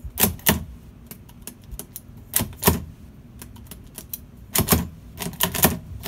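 Simplex L1000 mechanical pushbutton lever lock being worked by hand: sharp metallic clicks and clacks from its buttons, lever and latch as the new code is tried. The clicks come in small groups, a pair near the start, another pair mid-way and a quick cluster near the end.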